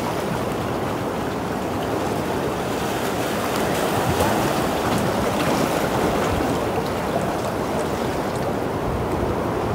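Sea surf washing against a rocky shore: a steady wash of noise.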